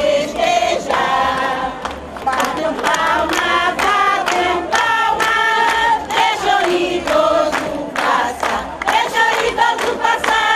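A group of voices singing a song together, with notes held and moving in a melody and short sharp strokes of a beat under them.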